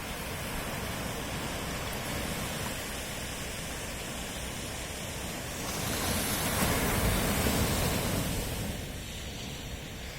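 Sea waves at night: a steady wash of surf, with one wave breaking and swelling louder about six seconds in before easing off.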